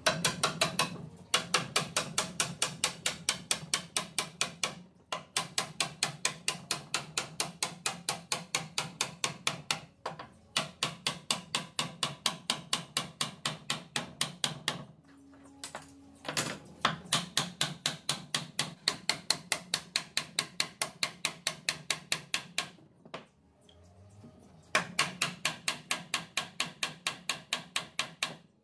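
Rapid, evenly spaced tapping on wood, about six strikes a second, in runs broken by short pauses.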